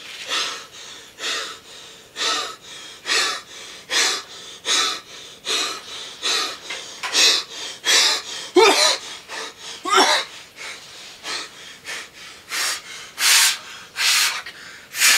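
A man's heavy, laboured panting, about one breath a second, with two short voiced groans a little past the middle: the strained breathing of a man lying wounded after being shot.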